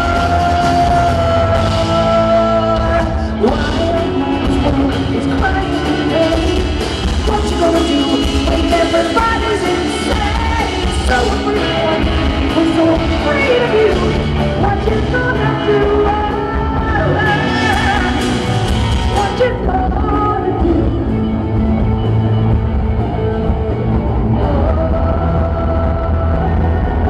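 Rock band playing live, with singing and wailed vocal lines over electric guitars and drums, heard in a poor-quality audience recording. About two-thirds of the way through the sound turns duller as the treble drops away, and the guitars carry on.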